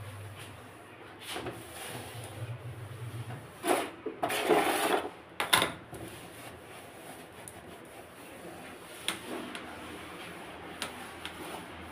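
Household handling noises: knocks and clicks of items being moved, then a cloth rubbing and scraping over a steel gas stove, loudest for a second or two near the middle. A low steady hum stops a few seconds in.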